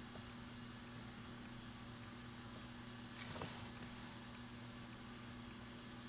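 Faint, steady low electrical buzzing hum at mains frequency over a light hiss, with a faint click a little past halfway. The recordist attributes the hum to a transformer or generator in the apartment below.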